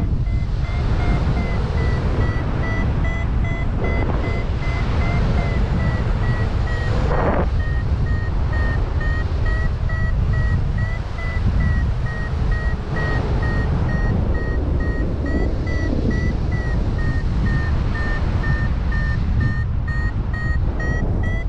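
Paraglider's variometer beeping steadily at a high pitch, the beeping that signals the glider is climbing in lift, over heavy wind buffeting on the microphone. A louder rush of wind comes about seven seconds in.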